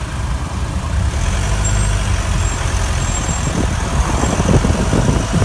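Opel Frontera B 2.2 DTI four-cylinder turbodiesel running, most likely at idle, with faint short high-pitched squeaks every so often in the middle. This is the unexplained squeak that occurs mostly at idle and often under acceleration. A rougher, clattering sound comes in over the last second or two.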